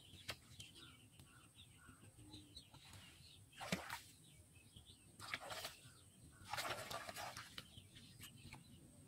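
Shallow pond water splashing and sloshing as hands work in it, in three bursts, the sharpest about a third of the way in and a longer one past the middle. Faint bird chirps sound between them.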